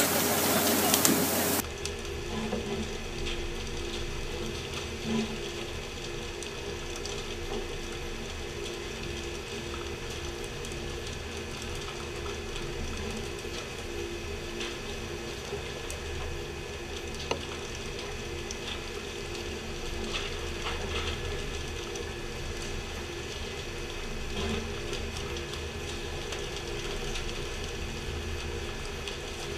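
Loud rushing water spray for the first second or two, stopping abruptly. Then the steady mechanical hum of the fishing boat's machinery, with faint regular ticking.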